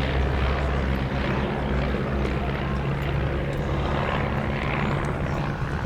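A de Havilland Chipmunk's single piston engine and propeller droning steadily in flight.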